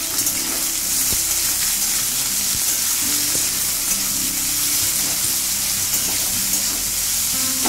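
Chopped onions sizzling steadily in hot mustard oil in a metal kadai, stirred with a metal spatula that clicks against the pan now and then.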